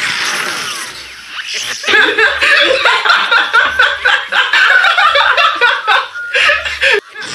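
Cartoon characters laughing hard in rapid high-pitched bursts, the effect of a laughing pistol. The laughter starts about two seconds in and breaks off just before the end.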